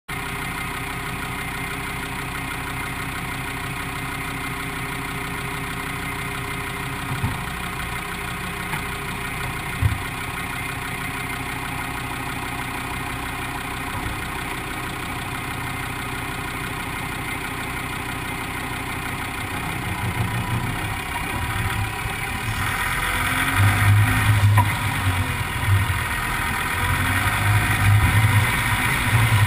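Land Rover Defender 90 engine idling steadily, with two single knocks in the first half. From about two-thirds of the way in, the vehicle moves off and the engine gets louder and uneven under load as it drives over the river gravel.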